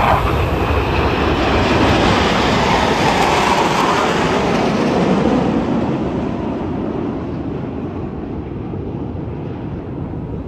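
Roar of a formation of jet aircraft flying past, loudest for the first few seconds and then fading away as they move off.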